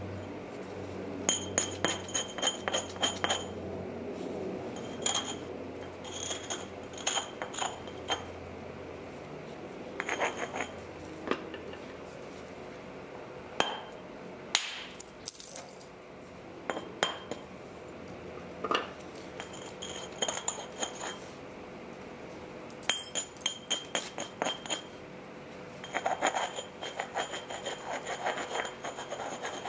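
Flint being knapped: repeated bursts of quick, sharp clinking taps on a flint dagger blank, several a second. The stone rings briefly at a high pitch, and a few single harder knocks come in between.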